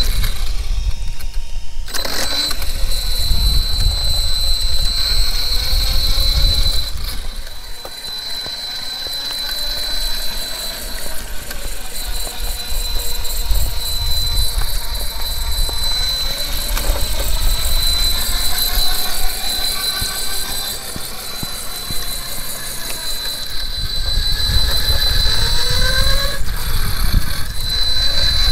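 CEN Reeper RC monster truck's brushless electric motor running on 6S LiPo power, a whine that rises in pitch with the throttle, over a steady low rumble from the tyres on pavement.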